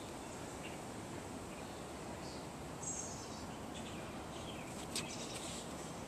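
Steady background hiss with a few short, high chirps, like a small bird or insect, and a single sharp click about five seconds in.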